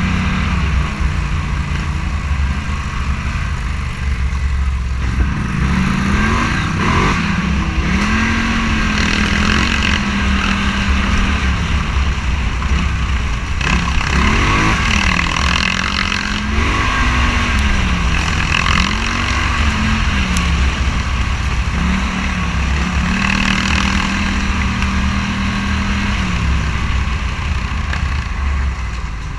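Scrambler motorcycle's engine running under a ride, its note steady at first, then climbing and dropping repeatedly from about five seconds in as the throttle opens and closes, over a heavy low rumble.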